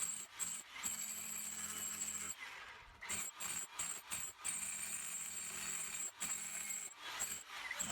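Cordless Milwaukee M18 Fuel SDS-MAX rotary hammer with a 3-inch scaling chisel, hammering in spells as it chisels. It stops about two and a half seconds in and starts again a couple of seconds later.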